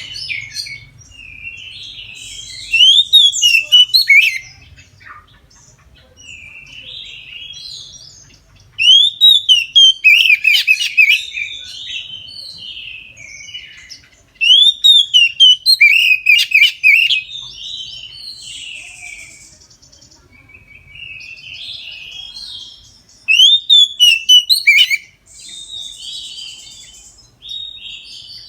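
Oriental magpie-robin (kacer) singing its full, loud song: four bursts of varied whistles and chatter a few seconds apart, with softer twittering in between.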